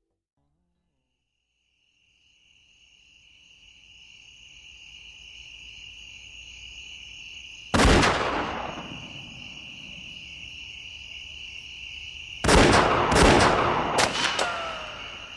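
A steady, high-pitched chorus of cicadas buzzing fades in after about two seconds of silence. Two loud, sudden rushes of noise break over it, one about eight seconds in and a longer one about twelve seconds in.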